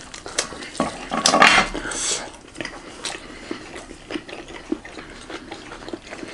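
A fork clinking and scraping on a ceramic plate: a string of light clicks, with a louder noisy stretch between about one and two seconds in.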